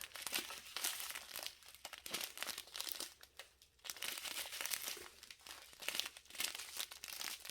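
Small plastic packets of diamond-painting drills crinkling as they are handled, in irregular rustling bursts with short pauses.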